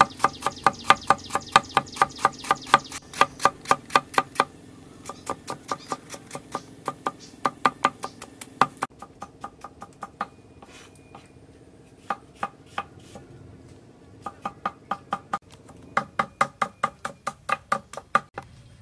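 Cleaver chopping peeled ginger on a wooden chopping block: quick, even knife strikes, about five a second, in several runs with short pauses between. Faint background music.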